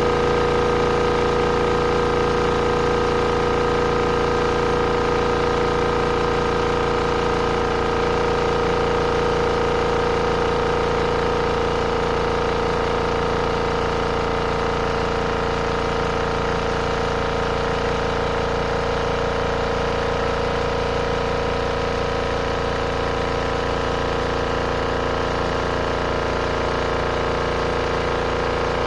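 RV washing machine running its final spin cycle: a steady motor hum with a constant whine.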